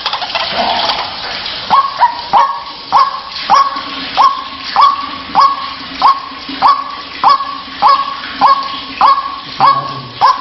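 White-breasted waterhen (ruak-ruak) calling: a string of short rising 'kru-ak' calls, repeated evenly about every 0.6 s after a more jumbled start.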